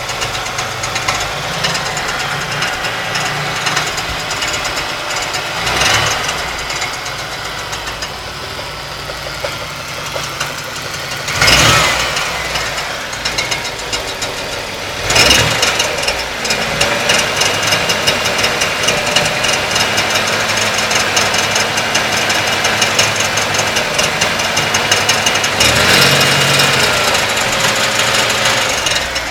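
1992 Ford Taurus's 3.0-litre Vulcan V6 running with a harsh grinding and clattering from inside the engine, with a couple of brief louder surges near the middle and busier clatter through the second half. The noise persists with the alternator and serpentine belt removed, and the owner hears it coming from the right side of the engine block, pointing to an internal fault rather than the accessories.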